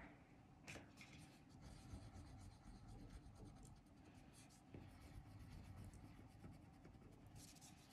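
Quiet scratching of a wax crayon colouring on paper in small, rapid circular strokes.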